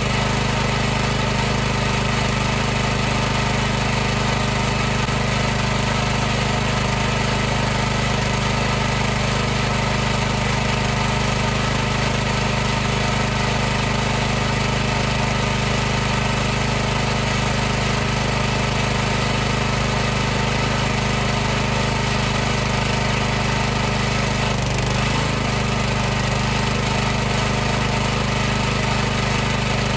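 High-pressure washer's pump motor running steadily, a constant mechanical hum with a hiss above it; a slight wobble in pitch near the end.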